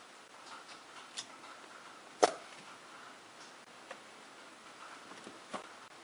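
Hands handling wiring and tools under a car's dashboard: a few light clicks and one sharp click about two seconds in.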